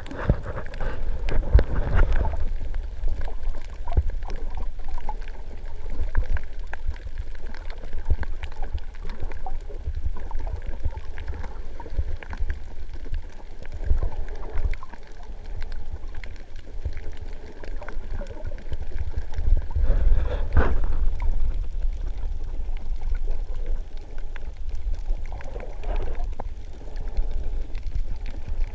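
Underwater sound heard through a GoPro Hero 3 Black's sealed housing: a muffled low rumble of water moving around the case, swelling now and then with the snorkeler's movements, with scattered faint clicks throughout.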